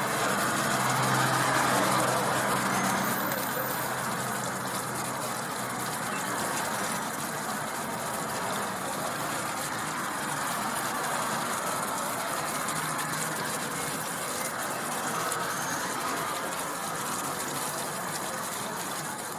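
Steady rushing outdoor ambience of a busy market square, with faint voices; a low hum shows in the first few seconds.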